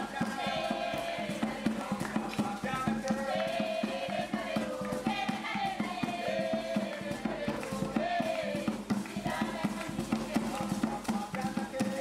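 A group of voices singing a chanting song, over a fast, steady percussive beat.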